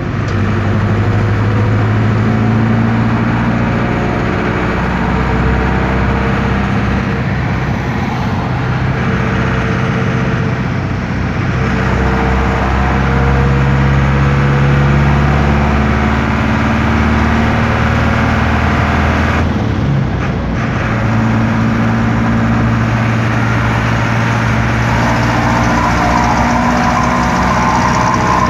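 Air-cooled Deutz F4L912 four-cylinder diesel of an Otokar M-2000 minibus running loud while the bus drives, heard from inside the cabin, its pitch shifting up and down with speed and gear changes. About twenty seconds in the sound briefly drops away.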